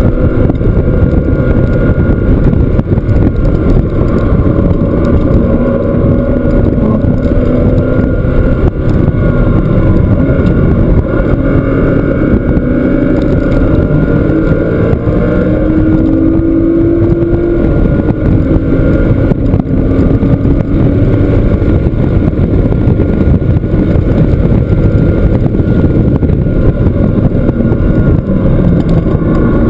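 Porsche flat-six engine running hard around a racetrack, loud throughout, its pitch climbing and dropping again and again through gear changes and lifts for corners.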